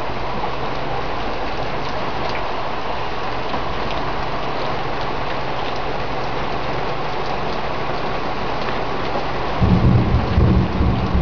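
Heavy rain pouring down in a steady hiss. Near the end a loud, low rumbling comes in over it.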